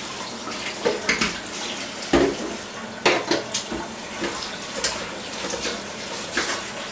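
Kitchen tap running into a steel sink while grated marrow is rinsed by hand in a metal bowl under the stream. Several sharp clinks and knocks of the bowl against the sink come through the water noise.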